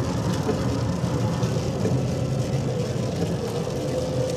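A car in motion, with a steady low rumble of road and engine noise.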